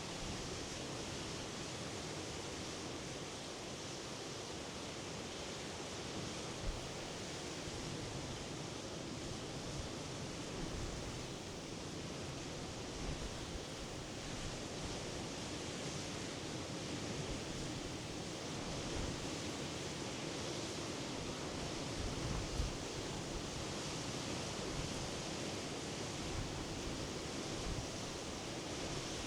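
Sea surf washing steadily onto the shore, an even rushing noise without breaks, with a few brief low bumps.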